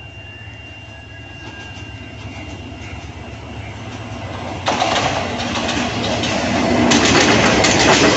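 Diesel-electric locomotive hauling a passenger train towards the microphone, its rumble growing steadily louder. About five seconds in it draws level and the sound jumps up sharply. Then the coaches roll past, wheels clattering rapidly over the rail joints.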